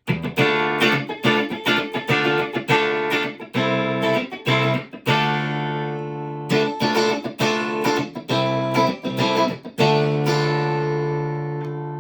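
Stratocaster electric guitar with single-coil pickups played clean: a run of picked notes and chords, with chords left ringing about five seconds in and again near the end.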